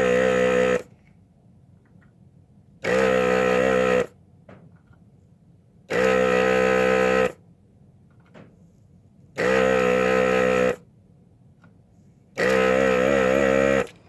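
Hakko 808 desoldering gun's built-in vacuum pump running in five short bursts, each a steady hum of about a second, as the trigger is pulled to suck molten solder off the IC pins.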